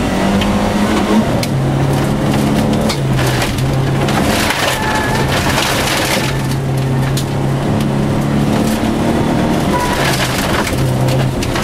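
Volvo 242 rally car driven hard on a gravel stage, heard from inside the cabin: the engine note jumps up and down between two pitches several times, over a constant crunch and rattle of loose gravel under the car.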